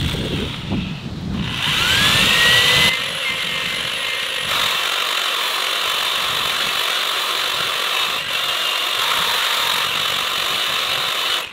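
Power drill spinning a mixer paddle through two-part epoxy (part A and part B) in a plastic bucket: the motor whines up to speed about a second in, runs steadily, then cuts off at the end.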